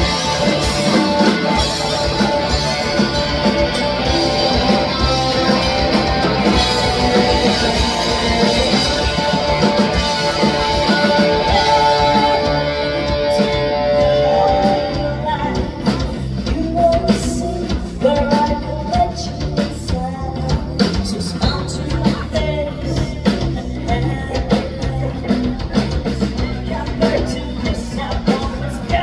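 Live rock band playing, with singing, electric guitar and a drum kit. About halfway through the high wash of sound thins out and the drum hits stand out more.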